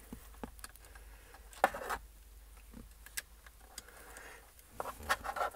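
Faint plastic clicks and handling noise as a USB cable is worked into a hub inside a car's centre console, with a sharper knock about a second and a half in and a few quick clicks near the end as the plug goes in.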